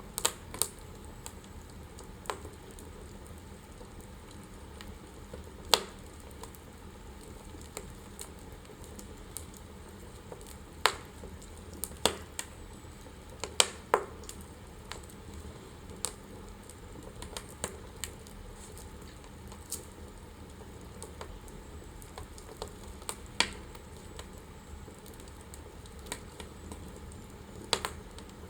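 Wood fire burning in a fireplace: a steady low hiss with sharp crackles and pops at irregular intervals, a few of them loud.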